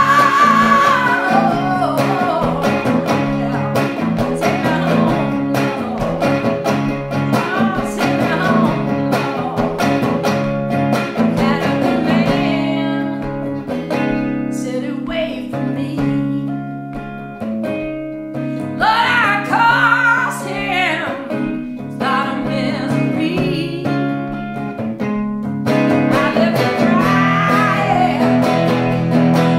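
A woman sings blues to her own strummed hollow-body electric guitar. The guitar thins to sparser, quieter playing in the middle with a few sung phrases, and full strumming and singing return near the end.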